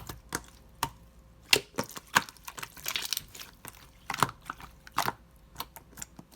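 Clear slime marbled with pink being squeezed and pressed by hand, giving irregular sharp clicks and pops.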